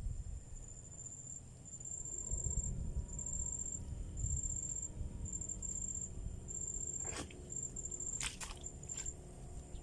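Insect calling in a high, thin trill broken into short trains, repeating through the whole stretch over a low rumble, with a few sharp clicks near the end.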